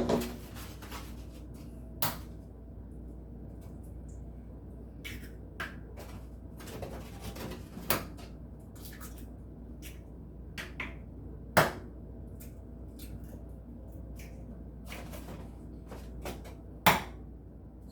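Eggs being cracked on the rim of a bowl: sharp single knocks a few seconds apart, the loudest about two-thirds of the way through and near the end, with lighter clicks of shell and bowl between.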